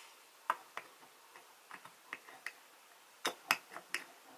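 Scattered light clicks, then several louder knocks in the last second or so, as the wooden bead bowl of a Beadalon Spin-N-Bead Junior bead spinner is set onto the spinner's metal spindle and wooden base but misses its mounting hole.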